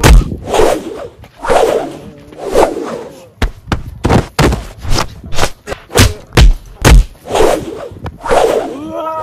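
Fight-scene punch and hit sounds: a rapid run of sharp thuds and whooshes, about two a second through the middle, with short yells and grunts from the fighters between the hits.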